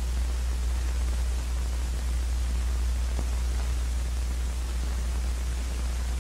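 Steady hiss with a constant low hum, the background noise of an old film soundtrack, with a faint tick about three seconds in.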